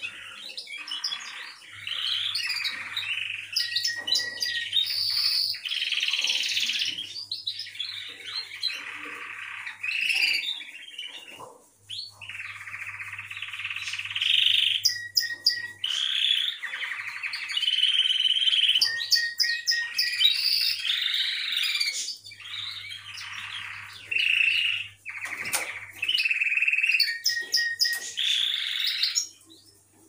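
Caged canary singing long, rolling, trilled song phrases with a few short held notes and brief pauses.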